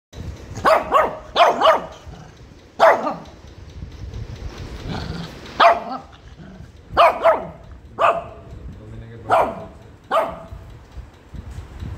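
Shih Tzu puppy barking, about ten short sharp barks, several in quick pairs: angry barks at being brushed after a bath.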